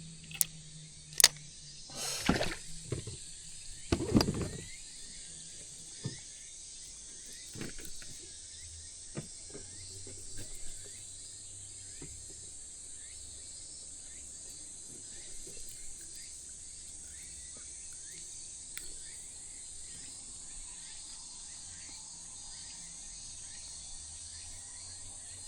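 Steady high-pitched insect chirring, with a few sharp knocks and handling thumps in the first few seconds.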